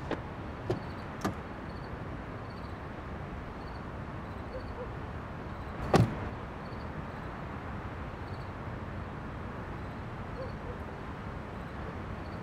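Steady background noise with a few light clicks in the first second and a half, then a single louder thud about six seconds in.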